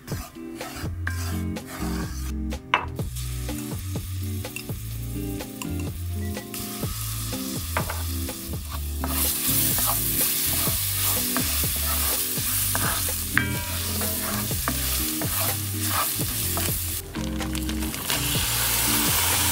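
Spices, grated ginger and garlic sizzling in oil in an enameled cast-iron braiser, with a wooden spoon stirring and scraping across the pan bottom. The sizzle builds a few seconds in and is loud from about halfway through.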